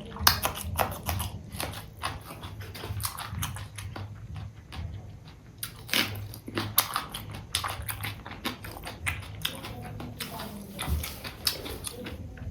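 Close-miked chewing and wet mouth clicks of a person eating rice and fish curry, in quick irregular smacks.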